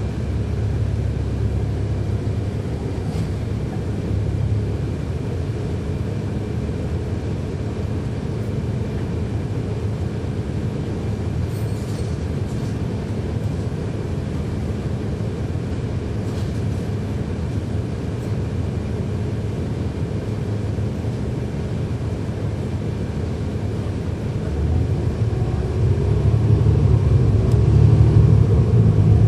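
A 2011 NABI 40-SFW transit bus's Cummins ISL9 diesel engine and ZF Ecolife automatic transmission, heard from on board, running with a steady low rumble. The rumble grows louder about twenty-five seconds in.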